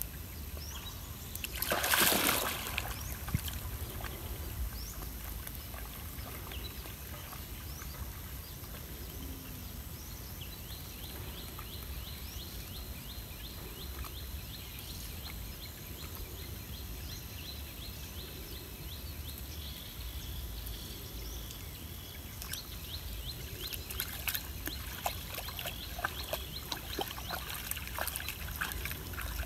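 A monkey splashing into a shallow muddy pond, with one loud splash about two seconds in, then water sloshing quietly as it swims. In the last several seconds comes a run of small, quick splashes as it paddles.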